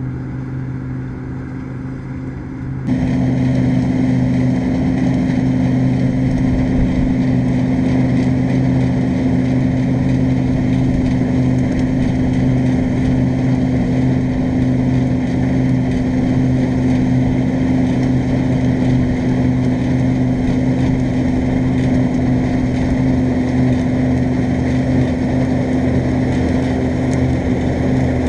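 New Holland TX34 combine harvester running steadily, its diesel engine's hum joined about three seconds in by a louder, denser mechanical din that then holds steady.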